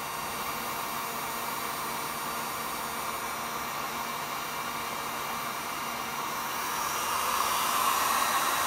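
Electric heat gun running steadily, its fan blowing hot air onto an LCD TV's panel driver chip to heat-test an intermittent picture fault. It grows louder near the end.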